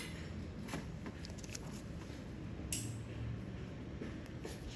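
Quiet room tone: a steady low hum with a few faint, short clicks.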